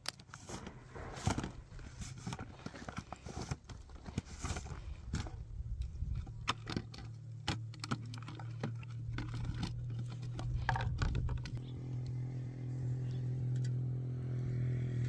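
Repeated light clinks and knocks of a steel jug and plastic lids being handled and set down on stones. About two-thirds of the way through, a low steady hum comes in and grows louder.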